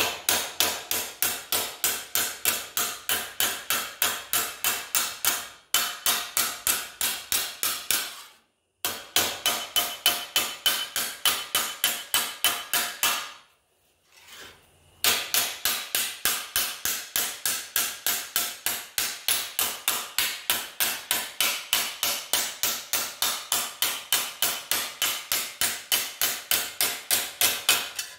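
Hammer striking a steel T-dolly held against a sheet-steel reinforcement plate in a bench vise, rolling over the plate's bent edge: a rapid, even run of metal blows, about four a second, with two brief breaks and one longer pause midway.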